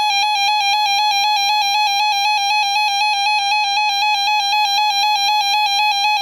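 Weather-alert radio alarm: a loud electronic beeping tone that warbles rapidly and evenly between two close pitches, without a break. It is the alert signal that comes before a severe thunderstorm warning.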